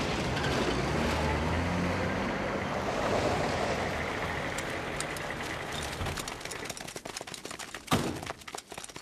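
Old canvas-covered military truck's engine running as it drives up, its pitch rising and falling, then dying down about six seconds in. Then a patter of running footsteps and rustling, with one sharp knock near the end.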